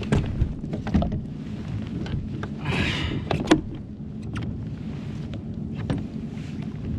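Clicks and knocks of fishing rods and gear being handled in a plastic kayak, with a brief rustle about three seconds in and a sharp click just after, over a steady low hum.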